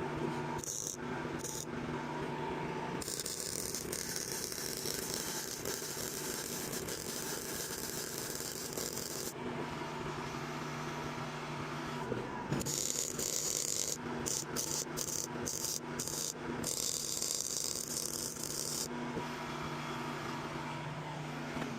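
Welding on steel railing: the arc hisses and crackles in two long runs of several seconds each, with a few short tack bursts in between, over a steady machine hum.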